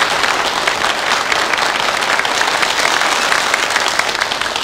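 Audience applauding steadily as a comedy sketch ends.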